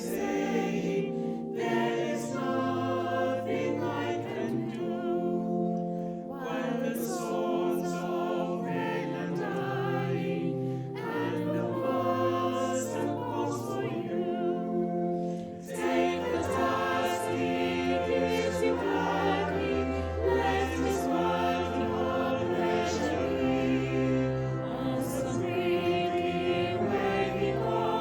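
Choir singing, many voices in harmony, with deeper bass notes coming in about halfway through.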